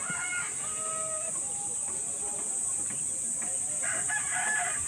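Roosters crowing, one crow near the start and another near the end that falls in pitch, over a steady high-pitched insect drone.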